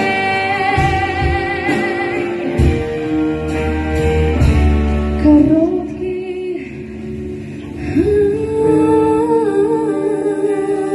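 Music: a woman singing a long held note with vibrato over the opening seconds, then the backing track's melody and bass carry on.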